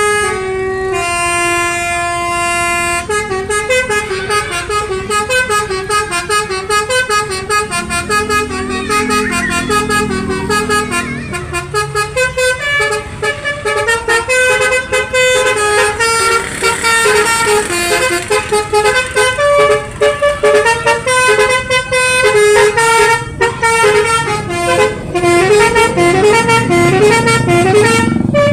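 Basuri multi-tone musical horn on a vehicle playing tunes note by note, with a few long held notes near the start and then a quick run of short stepping notes.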